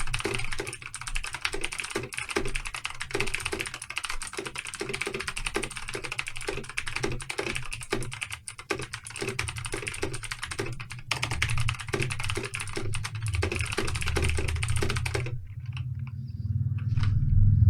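Rapid, continuous typing on a computer keyboard during a 15-second speed test, the keys clattering densely for about fifteen seconds and then stopping abruptly. A low rumble builds underneath in the last few seconds.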